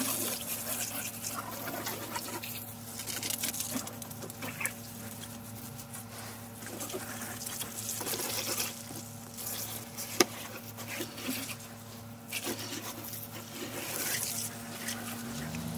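Garden hose spraying water onto a battery push mower's plastic deck, the water spattering and splashing unevenly. A single sharp click about ten seconds in.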